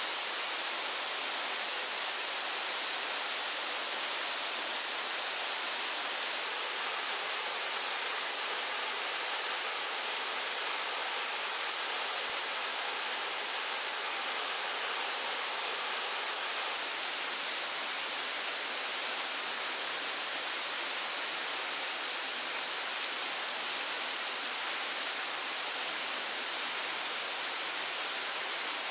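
A steady, even rushing hiss with no breaks or single events, strongest in the high end.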